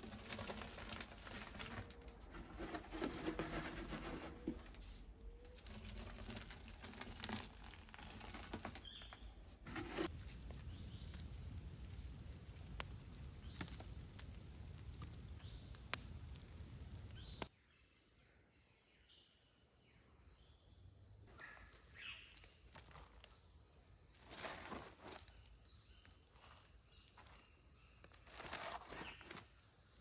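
Dry wood ash being handled and pressed by hand into the insulating gap of a clay furnace, with soft crunching and rustling. A little past the middle the sound cuts to a steady high trill of insects, with a few scrapes and rustles of ash being scooped from a fire pit.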